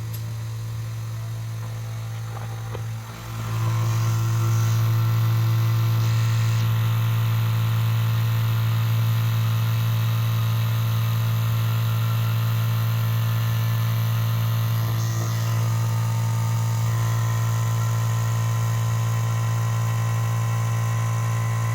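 VEVOR 8-gallon electric air compressor running steadily with a strong low hum, refilling its tank; it gets louder about three seconds in.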